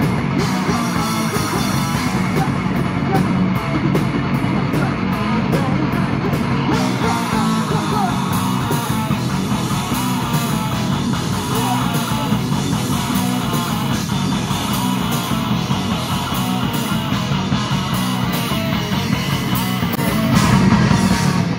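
Live metal band playing an instrumental passage: electric guitars, bass guitar and a drum kit, with regular cymbal strikes through the first several seconds and a louder build in the last second.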